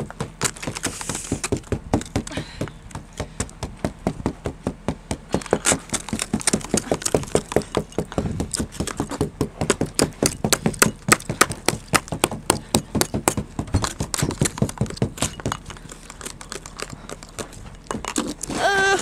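A plastic ice scraper chipping and scraping a crust of ice and snow off a car windshield along the wiper, in quick repeated strokes, several a second.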